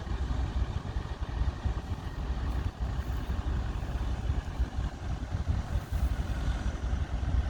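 An off-road 4x4's engine running steadily at low revs, a rough low rumble.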